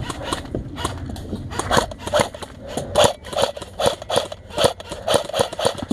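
Airsoft guns firing in a string of sharp cracks, about two to three shots a second.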